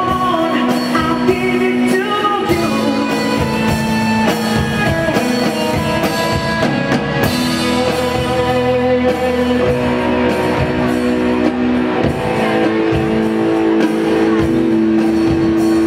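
Live rock band playing through a PA: a male singer's voice over electric guitars and a drum kit.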